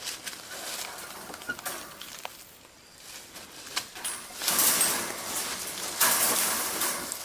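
Wire rebar tie being worked around overlapping welded-wire livestock panels at a steel T-post: scattered small metal clicks and scraping, with two louder rustling scrapes about four and a half and six seconds in.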